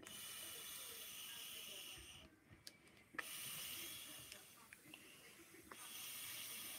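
A clear glitter punch balloon being blown up by mouth: three long puffs of breath hissing into it, with short pauses between for breathing in.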